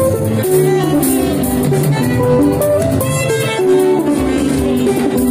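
Instrumental band music: melodic guitar-like lines over steady drum percussion, with no singing.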